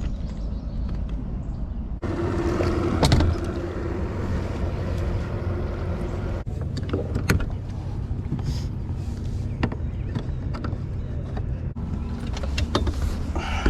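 An engine running with a steady low rumble, in several short clips cut together, with scattered clicks and knocks and one loud knock about three seconds in.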